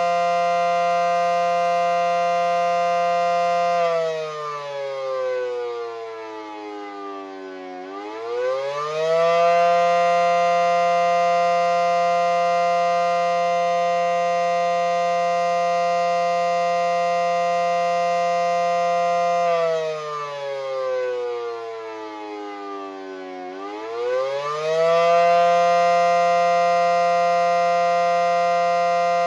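Federal Signal SD10 outdoor warning siren sounding its attack signal: a loud, steady two-note chord that winds down in pitch about four seconds in, sweeps back up within a second or so, holds, and winds down and back up again about twenty seconds in.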